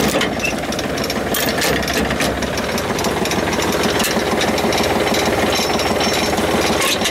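ATV engine idling steadily, left running to warm up and circulate its oil before an oil change.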